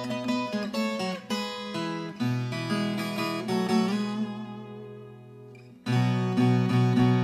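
Background music on acoustic guitar, plucked and strummed notes. It dies away to a lull past the middle, then comes back with a loud chord about six seconds in.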